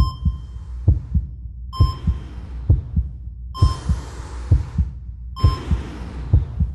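Heartbeat sound, a double thump about once a second, over a steady low hum. Bursts of hiss lasting about a second come and go between the beats.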